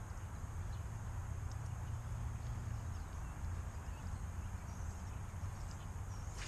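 Outdoor background noise: a steady low rumble under a soft hiss, with a few faint light ticks and no distinct loud event.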